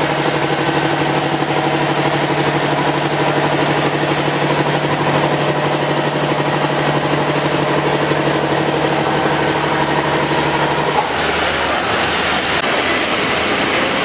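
CNC point-to-point drilling machine running: a steady mechanical hum with several held tones. About eleven seconds in, the tones stop and a noisier rush remains.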